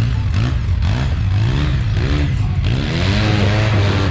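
Off-road vehicle's engine revving up and down again and again over a steady low rumble, with a rushing noise that swells about three seconds in.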